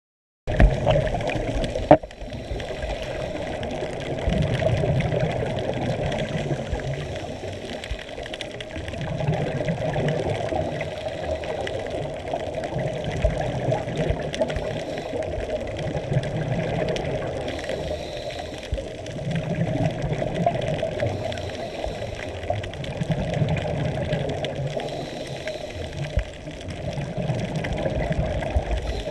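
Underwater noise of a scuba diver breathing on a regulator: exhaled bubbles surge every three to four seconds over a steady muffled water hiss. One sharp knock comes about two seconds in.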